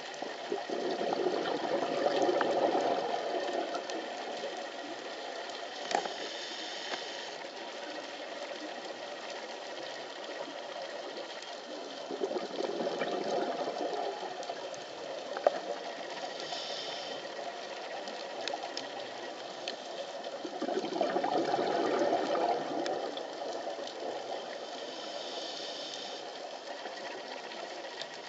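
Scuba diver breathing through a regulator underwater: three long bubbling rushes of exhaled air, each followed a few seconds later by a shorter, higher hiss of inhalation, over a steady underwater hiss with a few sharp clicks.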